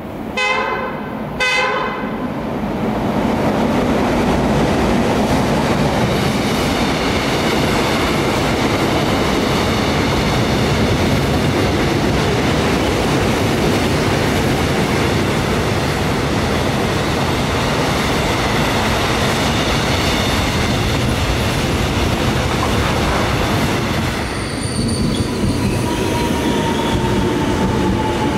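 Korail electric locomotive No. 8585 sounds two short horn blasts, then its freight train of container wagons runs through the station with a loud, steady rumble of wheels on rail and high tones ringing over it. Near the end, a Line 1 electric multiple unit's motors whine with a pitch that falls steadily as it slows.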